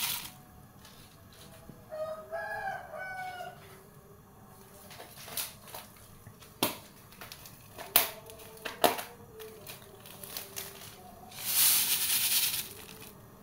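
Granulated sugar poured from a bag into a pot of water, heard as a loud hiss for about a second near the end. Earlier a rooster crows once in the background, and a few sharp knocks follow in the middle.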